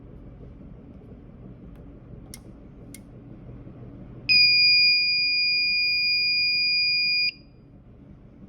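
Two light clicks, then one steady, high-pitched piezo beep from the fire alarm system, held for about three seconds and cut off sharply.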